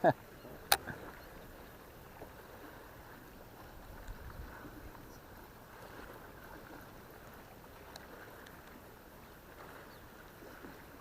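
Faint, steady noise of water and light wind around a small fishing boat, with one sharp click a little under a second in.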